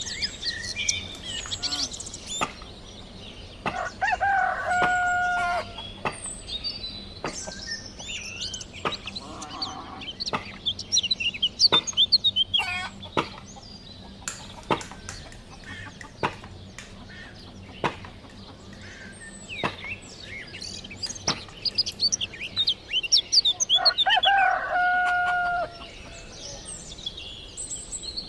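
Bird sounds: many short high chirps, and a longer held two-tone call heard twice, near the start and near the end, with scattered light clicks.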